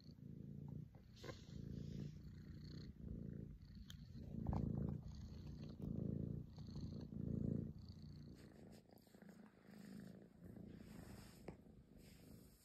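Young calico tabby kitten purring close up, a low rumble swelling and fading with each breath. It is loudest around the middle and softer in the last few seconds.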